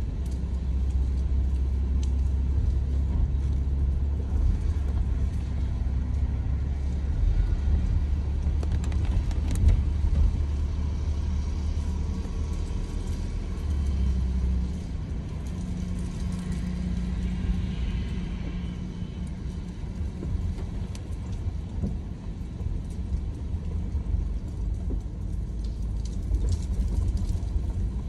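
Car driving, heard from inside the cabin: a steady low rumble of road and tyre noise, easing a little about halfway through.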